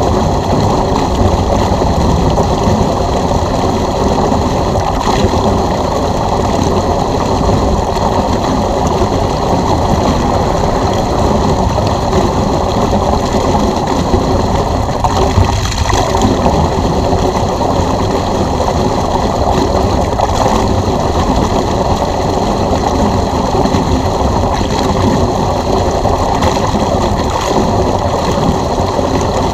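Electric pool pump running steadily while draining water rushes and gurgles through the drain hose, with a steady high motor whine over the rush of water.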